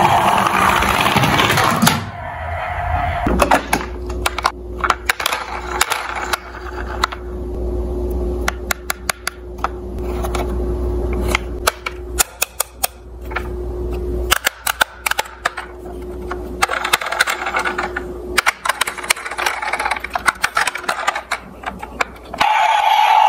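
Plastic toy cars clicking and clattering against each other as they are handled and picked out of a box, in many sharp irregular taps. A louder sound ends about two seconds in.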